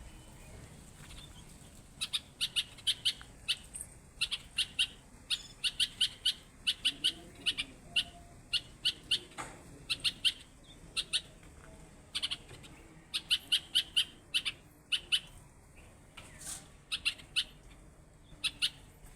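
A songbird calling in quick runs of short, sharp, high chirps, several notes to a run with brief pauses between, starting about two seconds in.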